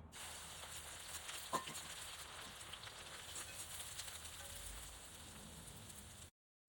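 Food sizzling and crackling in hot oil in a pan, a steady frying hiss with one sharp tap about one and a half seconds in. It cuts off abruptly near the end.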